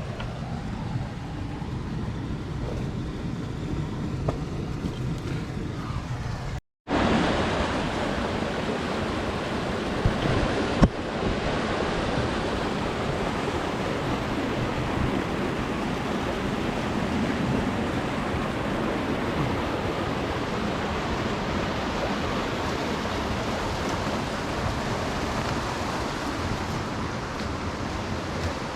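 Steady noise of rushing water. It cuts out for a moment about seven seconds in and comes back louder, with a single sharp click a few seconds later.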